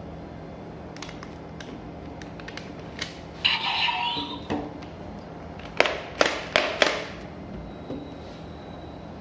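Hard plastic being handled: a few light clicks, a brief louder rattle about a third of the way in, then four sharp clacks in quick succession.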